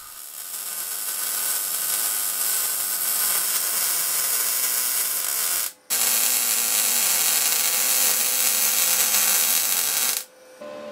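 MIG welder arc sizzling as weld beads are run on steel plate. It goes in two runs with a brief break near the middle and stops shortly before the end.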